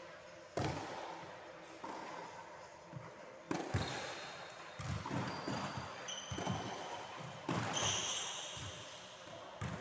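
A tennis rally on a hardwood sports-hall floor: a series of sharp ball hits and bounces a second or so apart, each echoing in the large hall, with short high squeaks of shoes on the wooden floor in the middle and near the end.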